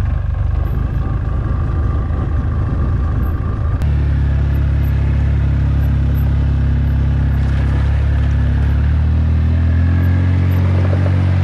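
ATV engine running steadily as the four-wheeler rides along a trail carrying a load of lime bags. About four seconds in the engine's tone changes abruptly to a deeper, steadier note.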